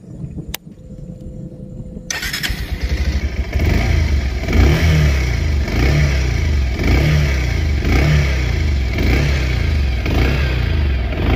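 A click, then a Bajaj Pulsar 150 BS6's fuel-injected single-cylinder engine is electric-started about two seconds in and settles into a loud, steady run, swelling and easing about once a second.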